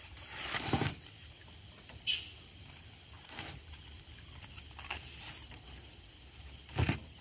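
A fishing net being hauled hand over hand out of a river into a boat, with water splashing and dripping off the mesh. There are two louder splashing knocks, about a second in and near the end, and a few smaller ones between. Night insects keep up a faint, even pulsing chirp behind it.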